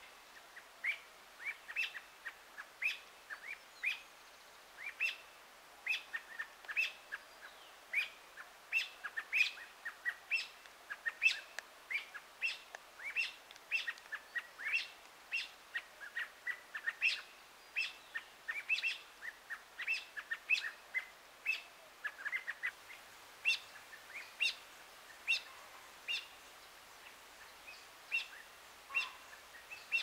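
Thrushes (Turdus sp.) giving a long run of sharp, short alarm calls, two or three a second, at a long-tailed weasel hunting them.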